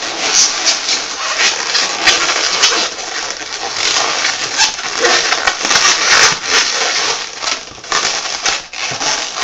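Latex modelling balloons squeaking and rubbing against each other as a balloon is worked into a gap in the sculpture and twisted: a dense, continuous run of rubbery squeaks and creaks.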